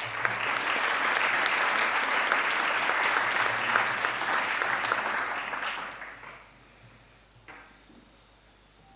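Audience applauding, which dies away after about six seconds.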